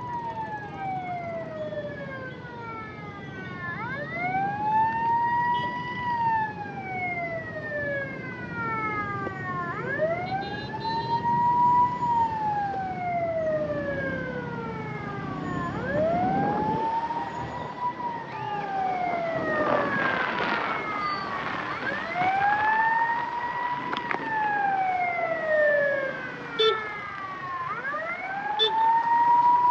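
Ambulance siren wailing in slow cycles, each rising quickly and then falling slowly, about every six seconds, over traffic noise.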